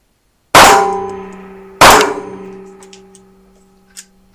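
Two shots from an ISSC M22 .22 LR semi-automatic pistol, about a second and a quarter apart, each ringing out for a long time in the small range. Near the end comes a light click as the pistol is handled after it stops firing, a stoppage the shooter thinks may be due to his ammunition or to the gun not being lubricated.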